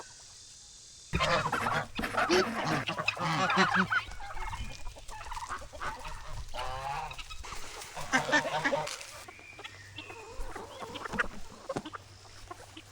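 Chickens and other farmyard poultry calling and clucking over one another, starting about a second in and thinning out after about nine seconds.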